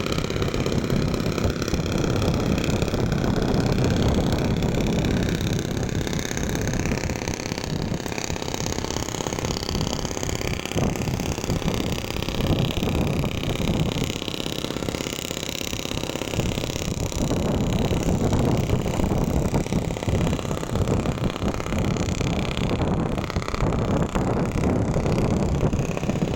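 A motor engine running steadily with a low rumble.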